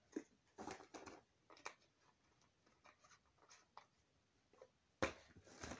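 Faint handling of a plastic glue bottle as the last glue is squeezed out and its cap fiddled with: scattered small clicks and rustles, with a single sharper knock about five seconds in.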